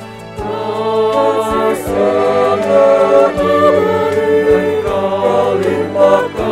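Choir singing an Indonesian Christian worship song in harmony over instrumental accompaniment, the voices coming in about half a second in.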